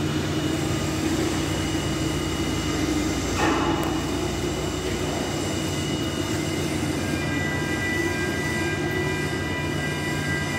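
Steady industrial machinery drone with a continuous low hum, with a brief knock about three and a half seconds in.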